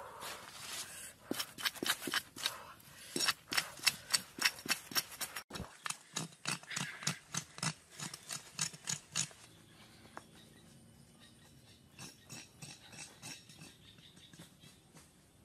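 Repeated sharp knocks and scrapes, a few a second, with a break about five and a half seconds in; they thin out to fainter ticks after about nine seconds.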